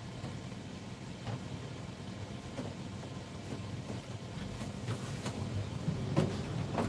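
Epson WorkForce inkjet printer running a printhead cleaning cycle to clear nozzles that were printing lines: a steady low mechanical hum with scattered clicks, which come more often and louder in the last few seconds.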